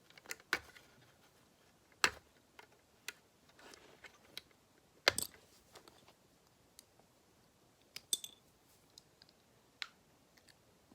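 Plastic Lego bricks clicking and knocking as they are handled, pressed and pulled apart: a scatter of sharp, irregular clicks, the loudest about two seconds in and about five seconds in.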